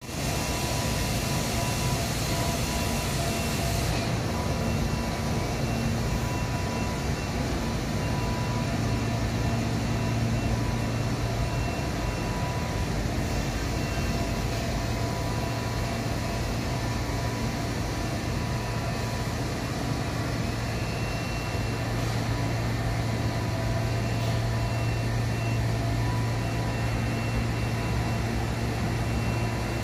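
Industrial laundry machinery running in a large hall: washer-extractors and an overhead conveyor system give a steady, unbroken drone with a strong low hum and a few steady higher tones.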